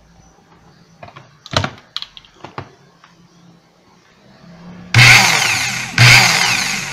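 Corded electric impact wrench running in two short trigger-pulled bursts, starting suddenly about five seconds in and again a second later. It runs again now that the loose wire connections at its switch have been cleaned and tightened.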